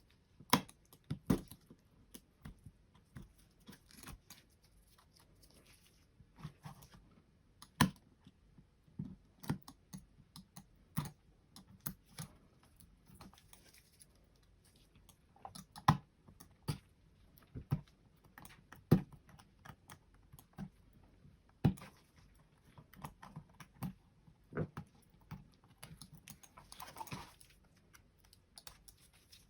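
Irregular sharp clicks and taps of hand tools on the plastic shell of a Razer Diamondback computer mouse being pried apart, with a short scraping sound near the end.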